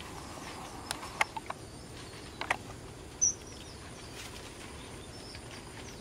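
Red avadavat (strawberry finch) giving a few short, sharp chirps in the first half, the loudest a single brief high note a little past three seconds in, followed by a few faint high notes, over a steady outdoor hiss.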